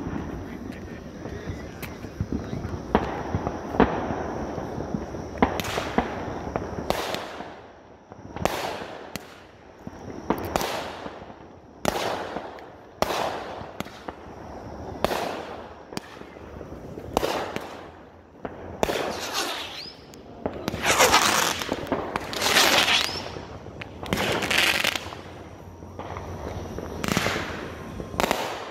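Aerial fireworks going off in a rapid string: sharp bangs about a second apart, each with a short crackling tail, thickest and loudest about two-thirds of the way through.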